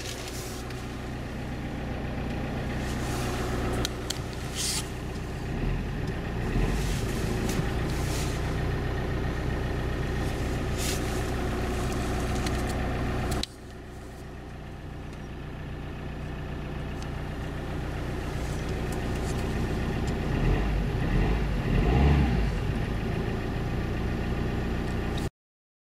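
Opel Zafira's 1.9 CDTI 8-valve four-cylinder diesel (Z19DT) idling cold at about −5 °C, heard from inside the cabin, with the coolant still near freezing. About halfway through the level drops suddenly, then gradually builds again, and the sound cuts off abruptly near the end.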